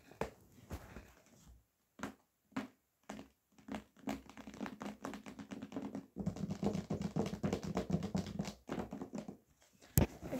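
Small plastic taps and clicks from diamond painting, with resin drills and tools being handled. They start sparse, thicken into a quick dense rattle of taps through the middle, and end with one sharp knock near the end.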